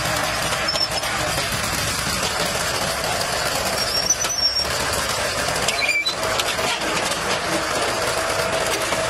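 Old farm tractor's engine running steadily as the tractor, fitted with polygonal frame wheels, creeps up onto a trailer, with a few short high squeaks over it.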